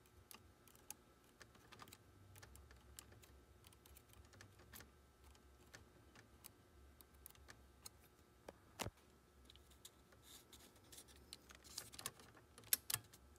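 Faint, irregular small metal clicks and taps of hand tools working the tape-guide adjustment screw on a cassette deck's transport, with a sharper click about nine seconds in and a few more clicks near the end as the metal tape-path gauge is handled.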